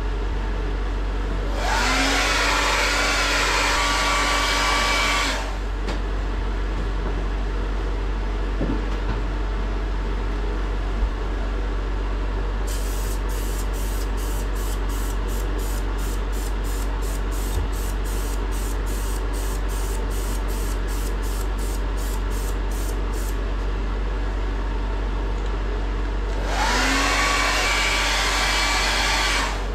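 Hand-held hair dryer switched on twice, for about four seconds and then about three, its pitch rising as the motor spins up, drying a freshly sprayed coat of tub refinishing finish so it can flash off between coats. Between the two runs, a series of quick faint ticks comes about three times a second.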